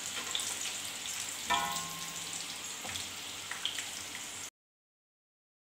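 Chicken nuggets frying in hot oil in a frying pan: a steady sizzle with scattered crackles. A short knock with a brief ring sounds about a second and a half in. The sound cuts off abruptly near the end.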